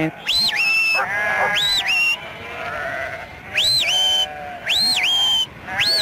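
A shepherd's whistled "right hand" command to a sheepdog: sharp whistles that swoop up and drop to a held lower note, repeated about five times. Sheep bleat between the whistles.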